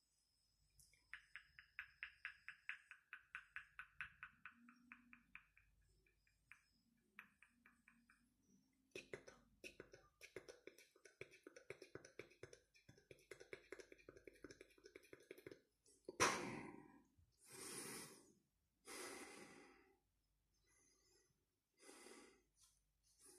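A man breathing close to the microphone. First comes a rapid fluttering pulse for several seconds, then a lower fast buzzing rattle, then a run of separate heavy breaths about a second each. The loudest breath comes about sixteen seconds in.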